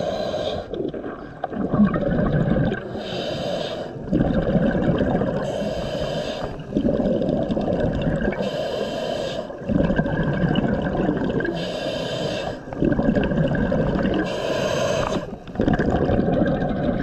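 A scuba diver breathing through a regulator underwater: a hissing inhale roughly every three seconds, alternating with the bubbling gurgle of each exhale.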